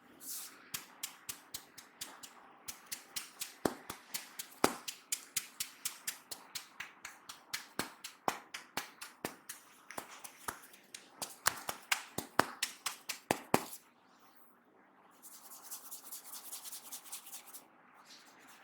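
Head massage percussion: a rapid run of sharp hand taps and slaps on the head, about four a second, stopping suddenly about fourteen seconds in. After a brief pause comes a few seconds of soft rubbing.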